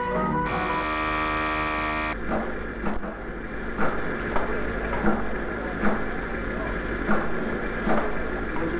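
An electric alarm buzzer sounds for about a second and a half as a red warning lamp lights, then cuts off. A steady hum with soft thuds about every three-quarters of a second follows.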